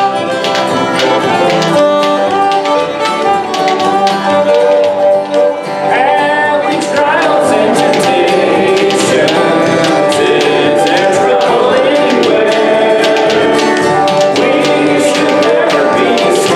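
A live worship band playing a song on acoustic instruments, with singing; the music grows fuller and steadier about seven seconds in.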